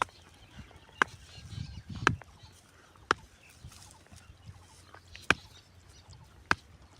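Five sharp, loud clicks at uneven gaps of about one to two seconds, over a faint background.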